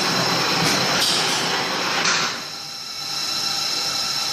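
CNC milling machine running: a steady high whine with a loud hiss and a few clicks over it. The hiss cuts off about two seconds in, leaving the whine.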